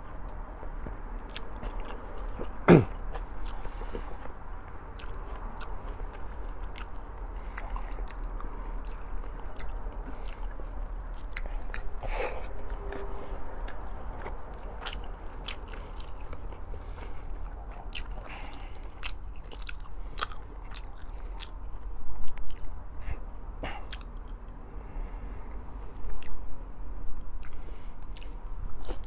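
A person chewing food close to the microphone, with many small sharp mouth clicks and a single loud click about three seconds in.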